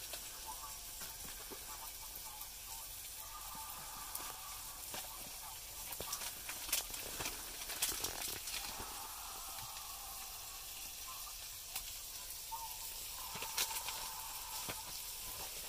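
Burbot chunks frying in butter in a frying pan: a steady sizzle with scattered crackles and pops.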